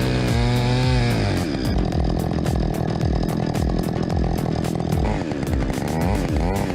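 Chainsaw engine running and revving, its pitch wavering up and down, over background music with a steady beat.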